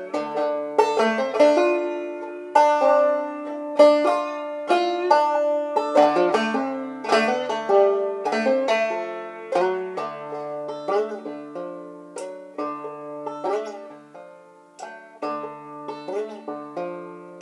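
Banjo played clawhammer style: a melody of plucked notes that ring and fade, with strummed strokes.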